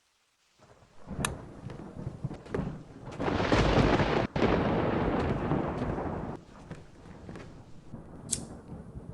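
Thunderstorm sound effect: rain hiss with a long rolling rumble of thunder in the middle. It starts after a brief silence, with sharp cracks about a second in and again near the end.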